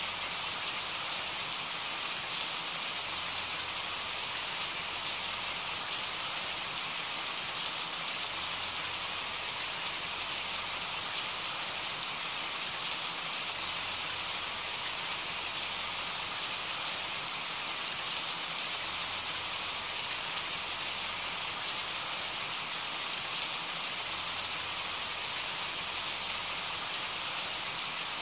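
Steady rain falling, an even hiss with a few faint scattered ticks.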